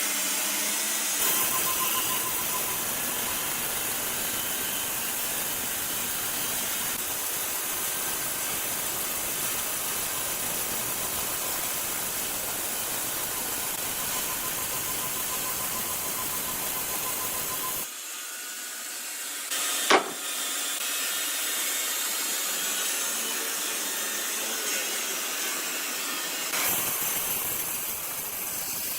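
Sawmill machinery running steadily with a hissing, whirring noise, the low rumble dropping away for several seconds in the second half. A single sharp knock about twenty seconds in.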